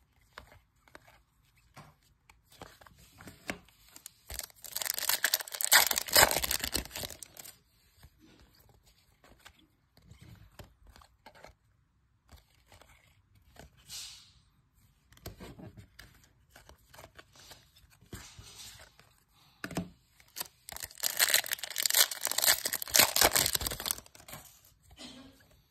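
Topps Chrome card pack wrappers crinkling and tearing open, in two long loud stretches about five seconds in and again about twenty-one seconds in. In between come quieter rustles and clicks of the cards being slid and shuffled in the hands.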